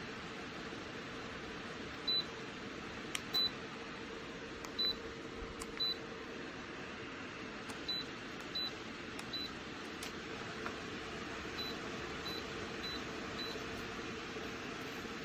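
Belaco ceramic fan heater running with a steady whir, while its controls give about a dozen short high beeps at irregular intervals as settings are changed, along with a few small clicks.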